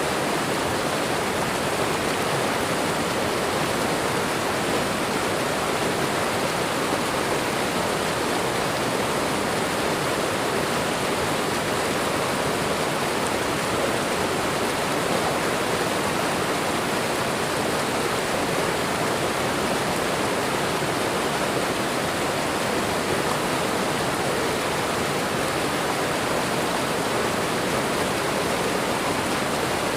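Waterfall and running water: a steady, unbroken rush of falling water.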